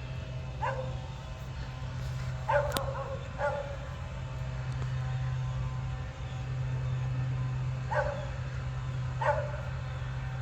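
A dog barking five times in short single barks, spread unevenly, over a steady low hum.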